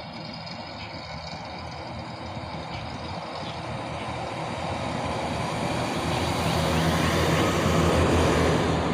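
A motor vehicle on the road, its engine and tyre noise growing steadily louder as it approaches, then passing close by near the end.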